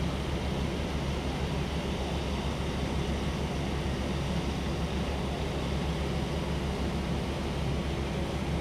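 Steady engine drone of fire pumps with an even hiss of water spray over it.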